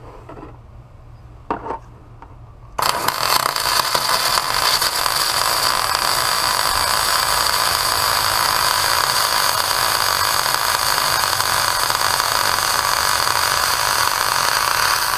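MIG welding arc from a Miller Spoolmate 100 spool gun running a bead on aluminum: a loud, steady arc noise that starts abruptly about three seconds in and holds evenly.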